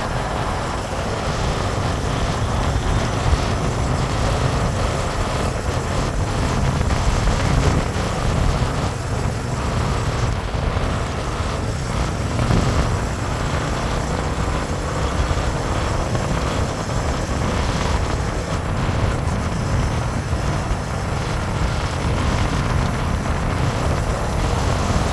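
Motorcycle cruising at a steady speed: engine and road noise with wind buffeting the microphone.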